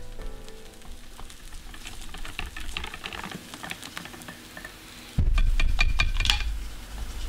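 Stirring and scraping in a mixing bowl: light scattered clicks and scrapes. About five seconds in, a louder low rumble of handling begins, with denser clicks.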